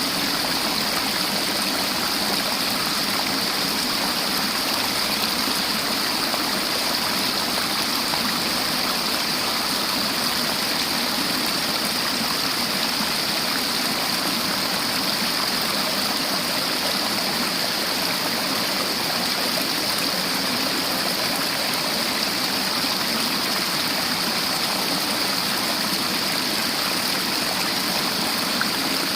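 River water flowing and rushing steadily over rocks, an even hiss with no breaks.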